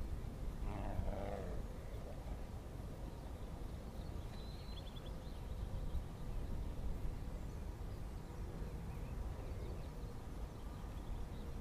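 Wind buffeting the microphone, a steady low rumble that rises and falls. In the first second and a half a whoosh fades away as something passes. About four and a half seconds in there is a brief high chirp.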